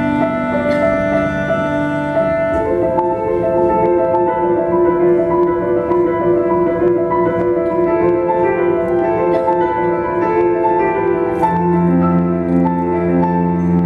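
Slow instrumental music led by piano, with held notes and chords changing in steps; a deeper bass chord comes in near the end.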